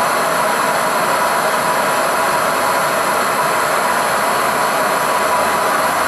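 Bernzomatic BZ8250HT air-fuel hand torch burning MAPP gas at a high setting, firing into a small furnace: a steady, even rush of burner flame.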